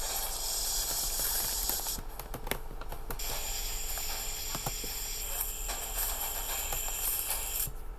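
Night-time woods ambience: a steady high hiss with scattered crackles and clicks. It drops out for about a second around two seconds in and cuts off just before the end.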